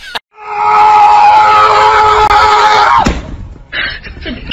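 A loud, siren-like wail of several steady held tones that drops sharply in pitch about three seconds in. A softer, quickly pulsing sound follows near the end.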